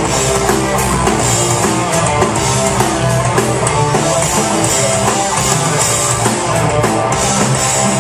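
Rock music with no vocals: electric guitar, bass and drum kit playing an instrumental break of a rock song.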